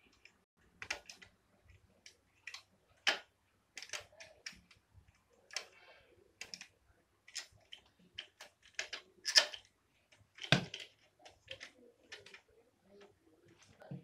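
An oil-filled radiator and its fittings being handled: irregular clicks, taps and knocks of metal and plastic parts, with some plastic rustling. One heavier knock comes about three quarters of the way through.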